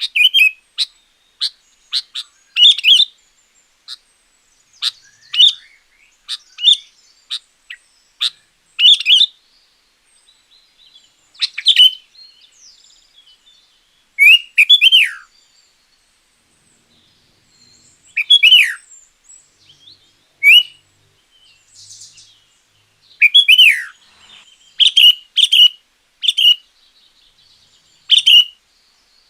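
Sooty-headed bulbul (kutilang) singing: a string of short, loud chirps and liquid phrases with pauses between them, several slurring downward in pitch.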